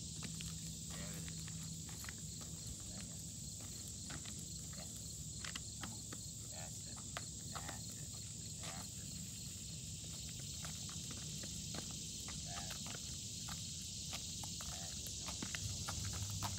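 Steady chorus of insects chirring, with scattered light footsteps of a person and a dog walking on pavement.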